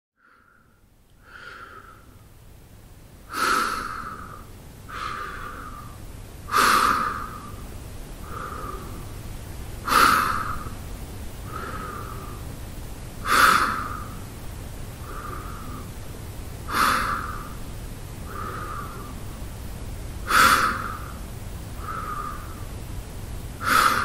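A man breathing slowly and evenly through his mouth while at rest. The breaths come in a steady cycle of a louder breath about every three and a half seconds, each followed by a softer one.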